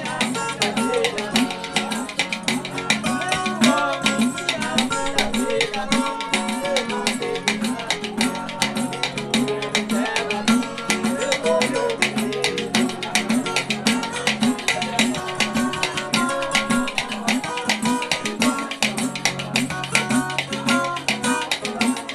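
Live samba de roda: men singing over a pandeiro tambourine jingling in a fast, steady rhythm, a bowl-shaped hand percussion instrument struck with a stick, and a small plucked acoustic guitar.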